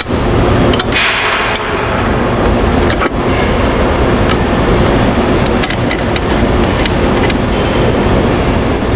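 Steady loud hum and rush of running brewery machinery, with scattered light metallic clicks and taps from a stainless pump casing and its clamp being handled.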